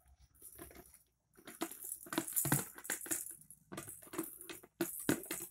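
A clear plastic tub being shaken and knocked about by a toddler, with something loose inside rattling and clattering. The rattling starts about a second in and comes in quick runs until just before the end.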